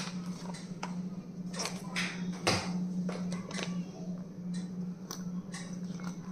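Small stationery items and packaging being handled: scattered light clicks, taps and crinkly rustles over a steady low hum.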